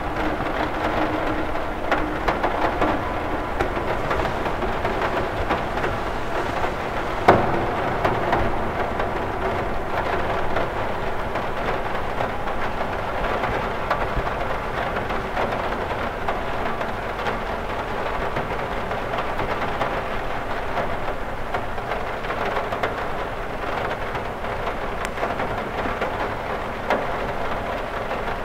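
Steady rain pattering on a cathedral window, with one sharper, louder drop hit about seven seconds in.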